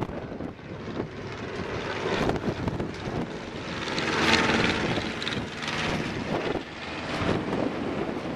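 Propeller engines of three triplanes flying past overhead in formation: a steady drone that swells to its loudest about four seconds in, then fades as they move away.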